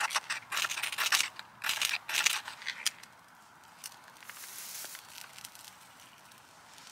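A ferro rod scraped hard with a steel striker about five times in quick succession, throwing sparks to light tinder. About four seconds in comes a softer, longer rustling hiss as the tinder catches and dry ferns are laid on.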